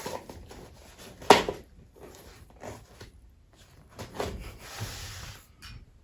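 Handling noise from the bag of preserved beans and its cardboard tube: soft rustling and taps, with one sharp knock about a second in.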